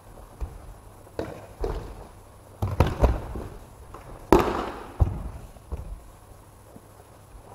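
Bodies hitting tatami mats in aikido breakfalls during throws: a string of echoing thuds and slaps, bunched together near the middle, with the loudest about four seconds in.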